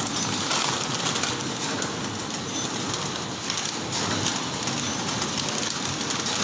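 Automatic rusk packing machine, a horizontal flow-wrapper, running: a steady, dense mechanical clatter of its conveyor and wrapping mechanism.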